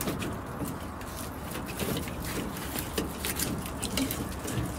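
Dry, bare grapevine canes rustling and clicking irregularly as a gloved hand grips and moves them against the greenhouse roof.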